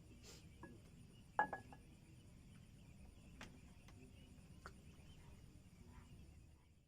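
A brief clink of small hard objects about a second and a half in, with a short ring, over a quiet background with a few faint clicks.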